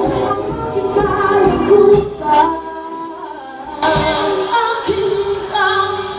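Live band playing with female vocalists singing, over electric guitar, bass and keyboards. Around two seconds in, the band thins out to mostly voice and a held note, then comes back in full near four seconds.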